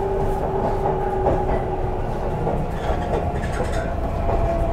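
Onboard a CNR Changchun-built MTR C-train motor car: the IGBT-VVVF traction inverter and motors whine steadily over a heavy wheel-and-rail rumble while the train runs. The lower whine sinks slightly in pitch in the first couple of seconds.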